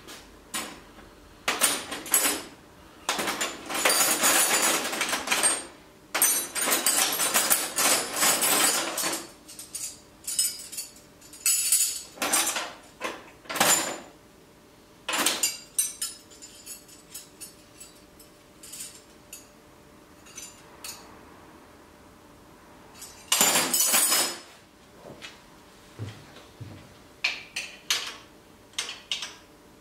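Metal hand tools (spanners and sockets) clattering and clinking in a steel tool-chest drawer as it is rummaged through, in several bursts of clatter with single clinks between.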